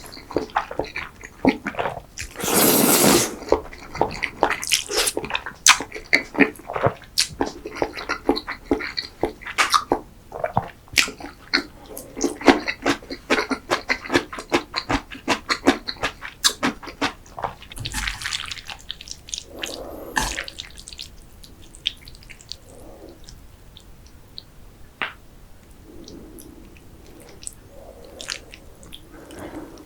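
Close-miked wet chewing of cream-sauced pasta and risotto: rapid sticky mouth clicks, with a loud slurp lasting about a second around three seconds in. It becomes sparser and softer from about 18 s on.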